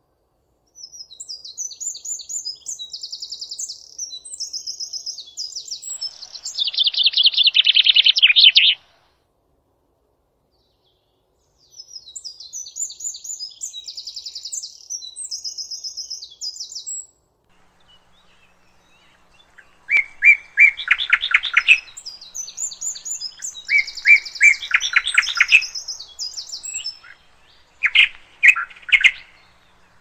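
A songbird sings long phrases made of rapid runs of repeated trilled notes. It starts high and ends each run with a louder, lower trill. Three bursts of song are split by two pauses of a few seconds, and the last burst is broken into shorter trills near the end.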